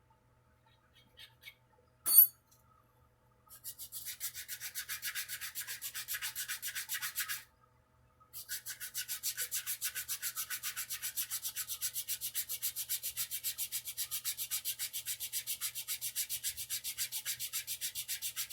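Sandpaper worked by hand over a wooden guitar neck in rapid back-and-forth strokes, about four a second, in two runs with a short pause between. A single sharp click comes about two seconds in, before the sanding starts.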